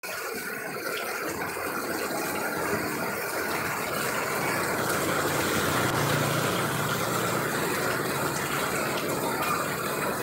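Heavy rain pouring onto a street and puddles, a steady hiss. A motorcycle passes through the wet road about halfway through, its engine a low hum under the rain.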